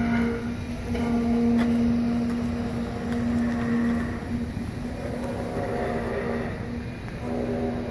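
Steady machine drone from a running motor: a low pitched hum over background noise that weakens in the middle and comes back near the end.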